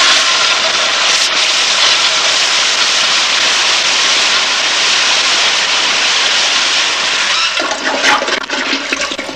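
Toilet flush sound effect: a long, steady rush of water that dies away near the end.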